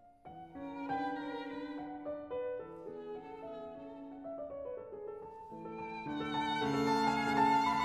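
Background instrumental music: a melody of held notes that swells louder about six seconds in.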